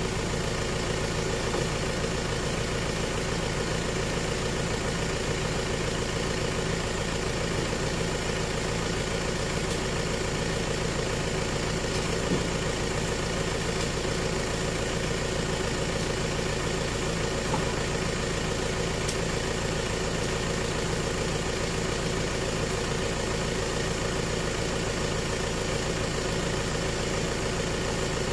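Light truck's engine idling steadily, with one soft thump about twelve seconds in.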